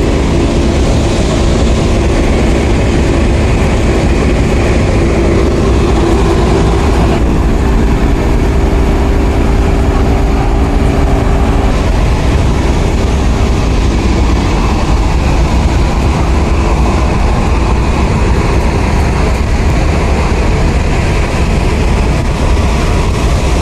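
Heavy truck engine running steadily with a strong low rumble, loud and close.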